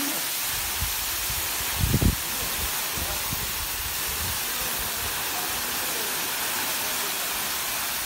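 Waterfall pouring into its pool: a steady, even hiss of rushing water, with a brief low thump about two seconds in.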